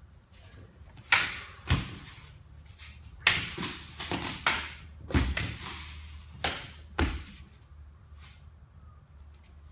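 Hanwei Raptor katana slicing through a tall rolled-mat target in a quick run of cuts: a string of sharp swishing hits over about six seconds. Cut pieces drop onto the floor mats with dull thuds.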